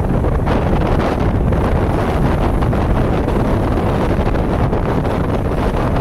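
Strong wind buffeting the microphone over the rush of rough water and waves breaking against a breakwater, a steady noise with a heavy low rumble.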